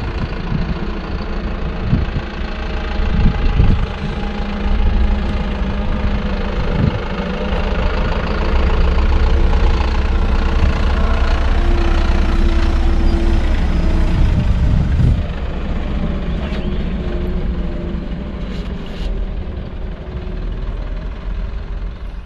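Diesel engine of a Mercedes Vario 818 expedition truck running steadily while it drives a rough sand track, louder for several seconds midway, with a few thumps.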